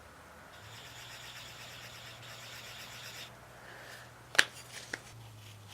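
Handling at a milling machine: a faint steady low hum and a soft hiss, then one sharp click about four seconds in and a lighter one half a second later.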